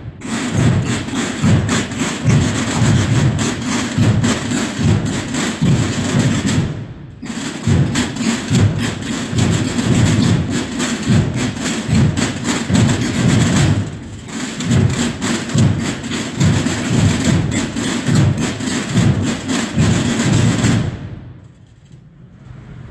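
Holy Week brotherhood drum band, bass drums and snare drums, playing a steady marching beat of about two strokes a second. It breaks off briefly twice and stops shortly before the end.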